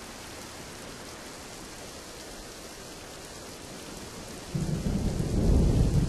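Steady hiss of rain, with a low rumble of thunder rolling in about four and a half seconds in and growing loudest near the end.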